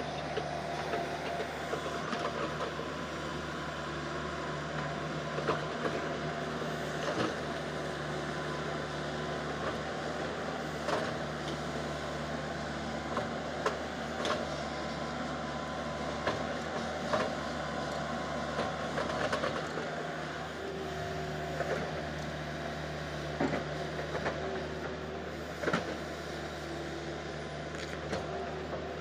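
A JCB 140 excavator's Cummins diesel engine running steadily under load, with sharp clanks and scrapes from its bucket digging into soil every few seconds.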